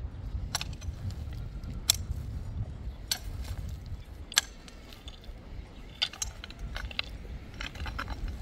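Metal hoe blades striking and scraping into stony soil: sharp strikes about every second and a quarter, then a quicker run of strikes near the end, over a steady low rumble.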